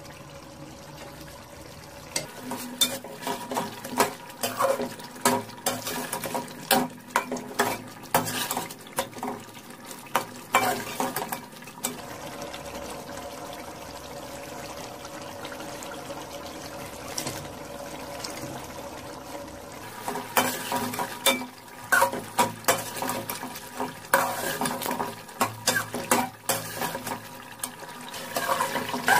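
Metal ladle stirring chicken curry in an aluminium pot, clinking and scraping against the pot, over a steady hiss of the simmering curry. The clinks come in two busy spells with a calmer stretch in the middle.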